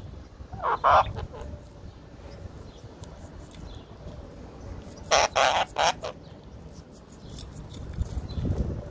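Indian ringneck parakeet giving harsh, honking squawks: a short pair about a second in, then three in quick succession around five to six seconds in.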